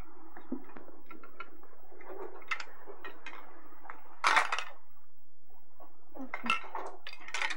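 Hard plastic toys clicking and clattering against each other in scattered knocks, with a louder rattle of several together about halfway through.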